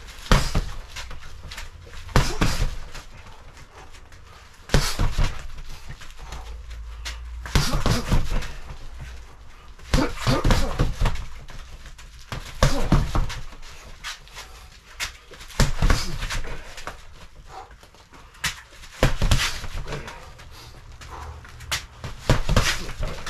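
Boxing gloves punching a Century BOB freestanding mannequin bag: flurries of thudding blows, about nine combinations spaced every two to three seconds, with heavy breathing between them.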